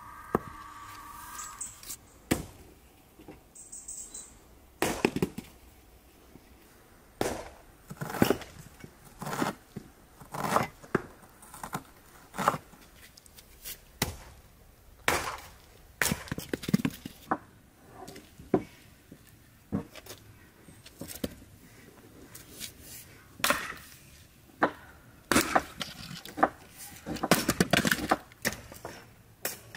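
Axe splitting firewood on a wooden chopping-block stump: sharp chops of the blade into the logs at an uneven pace of about one a second, some in quick pairs, with split pieces knocking on the block and the ground.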